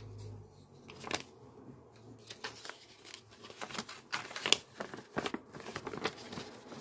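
Polymer banknotes and paper envelopes being handled: irregular crinkling and crackling as folded £10 notes are unfolded, counted through and slid into a paper envelope, with the sharpest crackle about four and a half seconds in.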